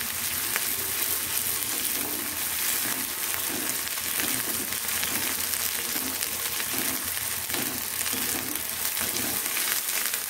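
Chopped onion, capsicum and crushed green chilli, ginger and garlic sizzling in hot oil in a steel kadhai, stirred with a wooden spatula that scrapes round the pan in repeated strokes.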